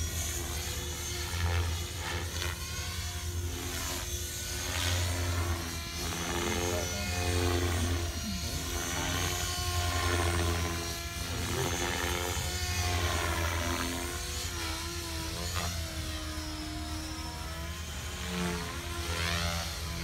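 Radio-controlled model helicopter flying overhead. The whine of its motor and rotor rises and falls in pitch again and again as it swoops through aerobatic manoeuvres.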